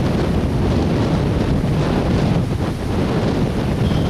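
Strong wind buffeting the camcorder's microphone: a loud, steady low rush with no distinct events.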